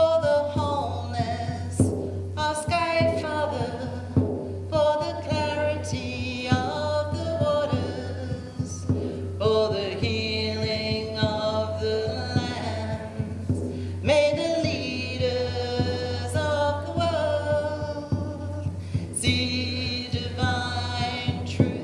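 Music with singing voices over a steady low drone, starting abruptly.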